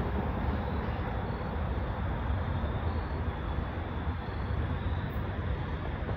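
Low, steady rumble of a distant diesel passenger locomotive approaching along the track, mixed with wind noise on the microphone.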